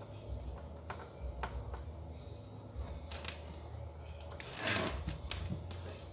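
Hand-soldering on a TV circuit board with a soldering iron: faint scattered ticks as the iron and solder wire work the joint, and a brief hiss just before five seconds in, over a low steady hum.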